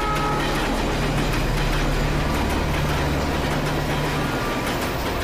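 Passenger train passing close by, its wheels running on the rails with a steady, even noise.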